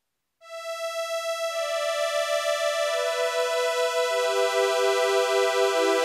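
Two-oscillator synthesizer string patch with no effects, from a Yamaha CS-80 or Arturia's CS-80V emulation. After a brief silence a single held note comes in, and further notes join one at a time, each lower than the last, building a sustained chord.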